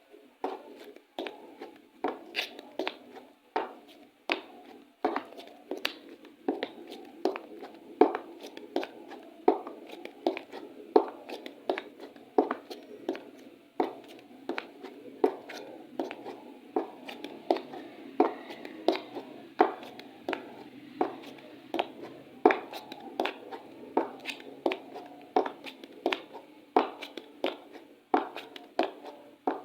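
High-heeled shoes clicking on a hard floor in a steady walk, about two steps a second.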